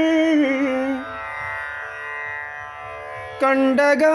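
Background song in an Indian classical style. A long held sung note ends about a second in, softer sustained instrumental tones follow, and a loud instrumental phrase of quick notes comes in near the end.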